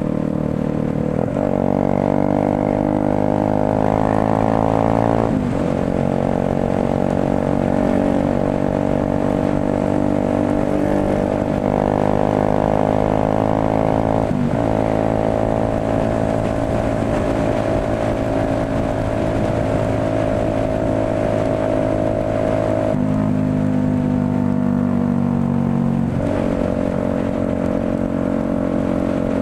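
Motorcycle engine under way, heard from the rider's seat: its note climbs and then drops sharply several times as gears change, and holds steady for several seconds in the middle, over the hiss of tyres and wind on a wet road.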